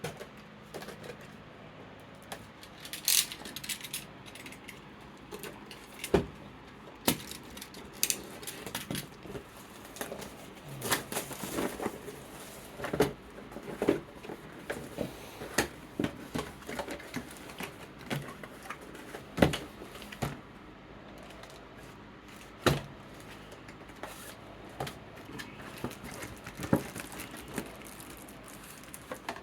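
Hands handling a card game's box, packaging and cards: scattered rustles, taps and clicks, over the steady whir of an electric fan.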